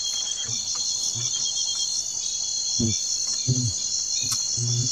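Steady, high-pitched chorus of crickets or similar night insects, finely pulsing. A few short, low sounds come in about three seconds in and again near the end.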